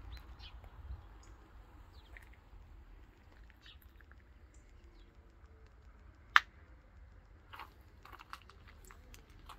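Faint, irregular crunching of footsteps on gravel over a low rumble, with one sharp click about six and a half seconds in.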